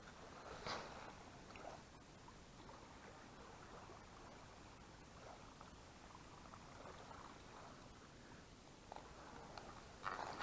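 Near silence: a faint steady outdoor hiss, broken by a brief soft noise about a second in and another near the end.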